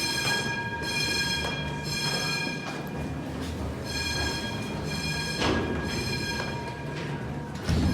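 Building fire alarm horn sounding in repeated blasts with short breaks between them. A short knock comes near the end.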